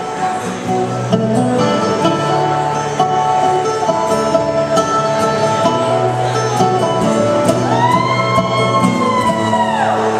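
Live country band playing an instrumental break: acoustic guitar strummed under a mandolin lead. Near the end a long held lead note bends up, sustains and bends back down.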